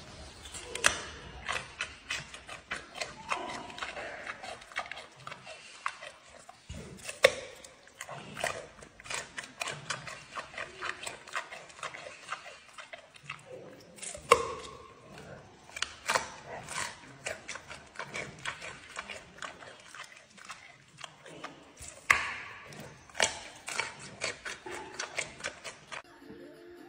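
Giant panda biting and chewing a raw carrot. A loud crunching bite comes about every seven seconds, four in all, with rapid crunching chews in between.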